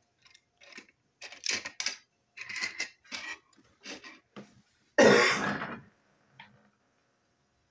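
Small plastic toy train wagons clicking and tapping on a tabletop as they are handled and set down, a string of short knocks. One loud, short burst of noise about five seconds in.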